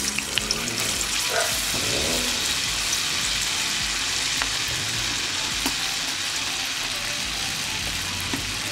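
A freshly dropped madhur vada patty sizzling steadily in hot oil in a frying pan, with a few small pops.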